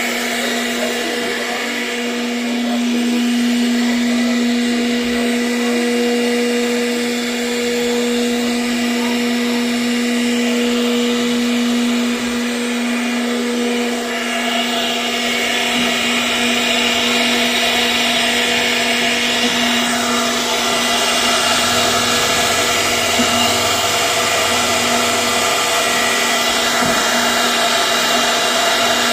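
CNC router spindle running at a steady high speed and carving wood: a constant motor whine under a hissing cutting noise that grows louder and brighter about halfway through as the bit works the wood.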